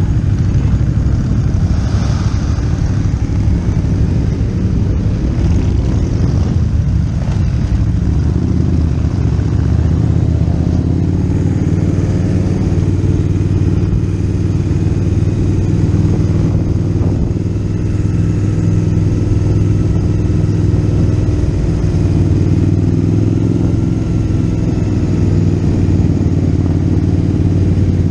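Motorcycle engine running steadily while riding, its pitch nearly level, over a haze of wind and road noise.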